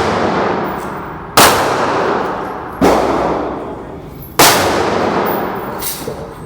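Springfield Armory 1911 pistol fired three times at a slow, steady pace, about one shot every one and a half seconds. Each loud report leaves a long, fading echo. Fainter, distant shots follow near the end.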